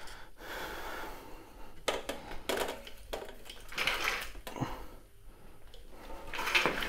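Handling noise: rustles, scrapes and a few light clicks, with the louder noisy stretches in the middle and near the end.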